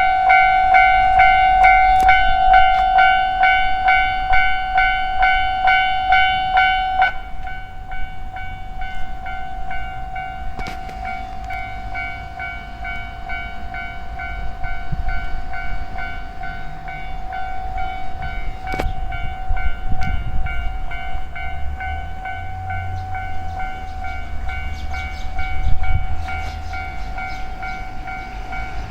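Japanese railway level crossing's electronic warning bell ringing in a rapid, even repeat. It drops sharply in volume about seven seconds in and then keeps ringing more quietly. A low rumble, typical of a passing train, builds under it in the second half.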